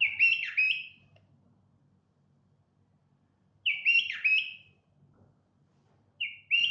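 Bulbul singing short phrases of quick whistled notes. One phrase comes at the start, another about four seconds in, and a third begins near the end.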